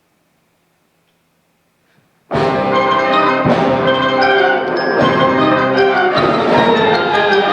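High school symphonic band coming in together loudly about two seconds in after a near-silent pause, the full ensemble then playing on at a steady high volume with many notes sounding at once.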